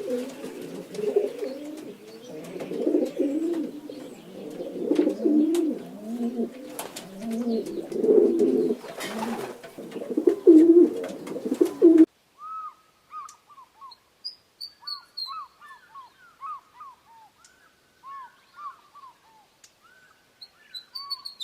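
Birds giving low, dense, warbling cooing calls for about twelve seconds. Then a sudden cut to a different scene of short, sparse chirps from small birds.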